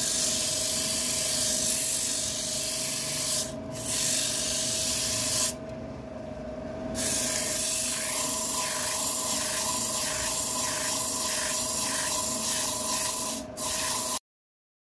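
Sandpaper rubbing against wood turning on a lathe, a steady hiss over the lathe's steady hum. In the second half the sanding swells and fades in a regular rhythm, a little under two strokes a second. It cuts off suddenly near the end.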